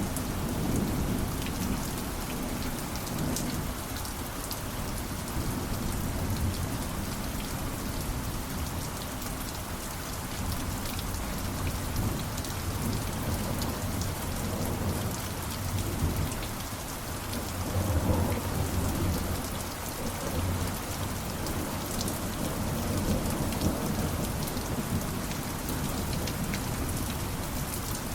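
Steady rain falling, with low rolling thunder rumbling underneath that swells louder about two-thirds of the way through.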